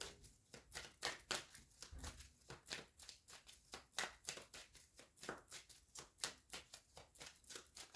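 A deck of tarot cards being shuffled by hand: a quick, irregular run of soft card flicks and slaps, several a second.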